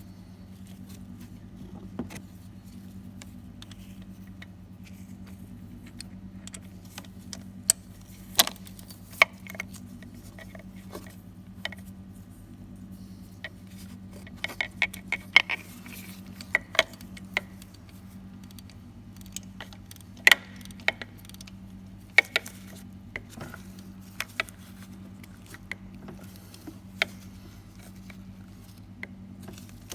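Irregular metal clicks and clinks of a socket, extension and wrench being worked on a spark plug, some clustered in quick runs, over a steady low hum.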